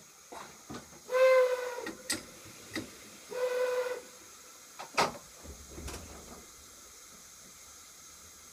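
Metro train horn sounding two short blasts about two seconds apart, each one steady tone, among sharp clicks and knocks from the train. A loud knock comes about five seconds in, after which only a faint steady hiss remains.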